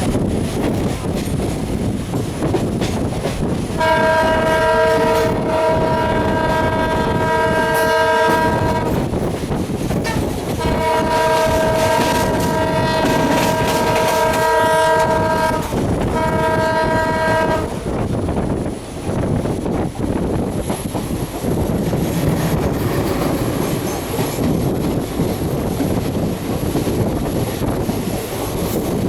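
WDP4D diesel locomotive's air horn sounding a chord of several tones: two long blasts of about five seconds each, then a short one. Underneath and after, the steady rumble and clickety-clack of the express train running through.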